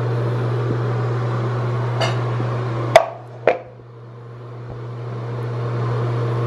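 A steady low hum with three sharp knocks about two, three and three and a half seconds in, the one at three seconds the loudest.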